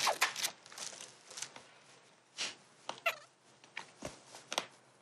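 Quiet close-up eating sounds of someone chewing and sucking on spicy chicken feet, with scattered light clicks and rustles of handling, and a brief wavering murmur about three seconds in.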